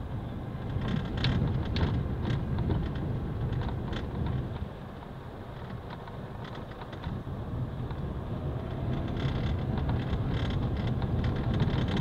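A vehicle driving along a dirt road: a steady low rumble of engine and tyres, with scattered knocks and rattles from the bumpy surface. It eases off briefly a little before the middle, then builds again.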